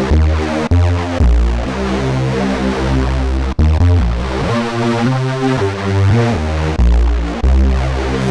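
ASM Hydrasynth digital wave-morphing synthesizer playing a factory preset: deep bass notes that change every second or so under a layered, chord-like electronic tone. There is a brief cut in the sound about three and a half seconds in.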